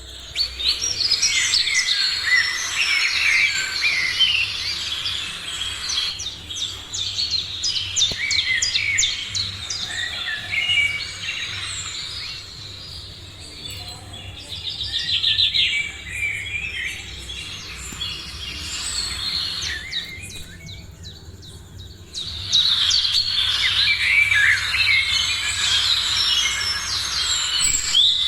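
Morning chorus of many birds chirping and calling at once, quick overlapping chirps and short whistled glides. The chorus thins in the middle and turns suddenly louder again near the end.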